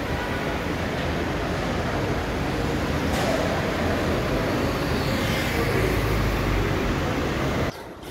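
Road traffic noise from slow-moving cars in a covered roadway: a steady rumble and hiss. It cuts off suddenly near the end, giving way to quieter outdoor sound.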